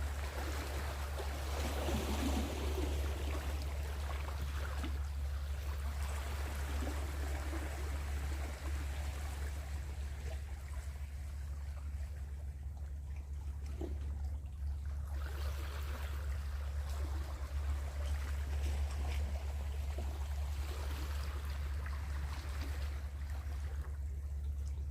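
Seawater washing and lapping, rising and falling in waves over a steady low rumble.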